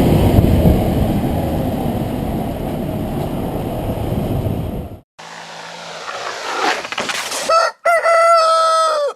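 A steady low rumble of outdoor noise that cuts off abruptly, then after a pause a rooster crowing once, in a long held call that ends the clip.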